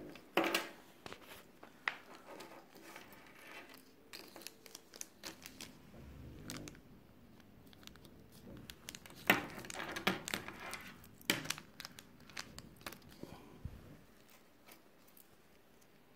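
Thin plastic packaging bag crinkling and rustling as it is handled and opened by hand, in irregular bursts with small clicks, loudest about half a second in and again around nine to eleven seconds in.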